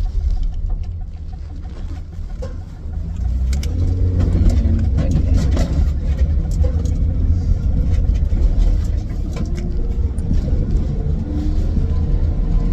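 Steady low road and engine rumble heard from inside a moving vehicle, getting louder about three to four seconds in.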